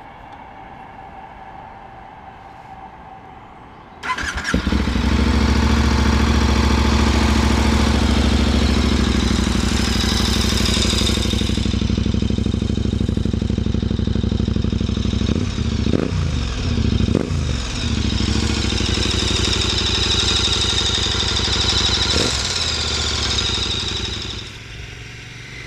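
KTM 1050 Adventure's V-twin engine through an Akrapovic exhaust, coming in suddenly about four seconds in and running loudly and steadily, with a few short swings in pitch past the middle, then falling away just before the end.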